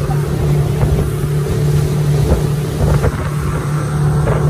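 Motorboat engine running at a steady pitch while the boat is underway, with wind buffeting the microphone.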